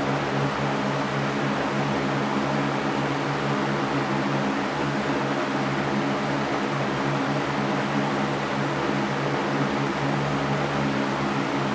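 Electric fan running steadily: an even rush of air with a low motor hum underneath.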